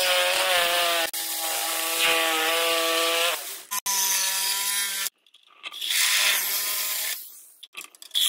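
Reciprocating saw running and cutting through metal pipework on a refrigerated air dryer: a steady motor whine with the rasp of the blade, in several runs with short stops between.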